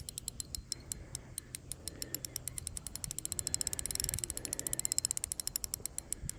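Fishing reel clicking in a quick, uneven run of ticks that speeds up around the middle, as a big carp on the line pulls against it.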